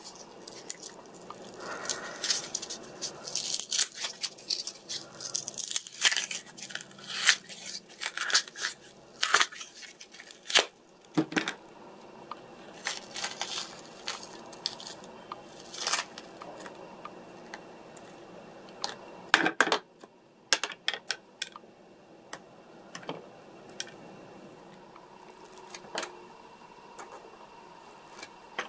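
Hands working a pink silicone rubber mould on a workbench: irregular peeling, crinkling and sharp clicks, busiest in the first half, with a few scissor snips into the silicone near the end.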